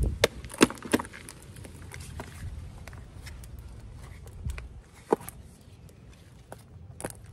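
Scattered sharp knocks and taps from handling a terracotta flower pot around a metal wire lamp stand: three close together at the start and two more later. A low rumble runs underneath.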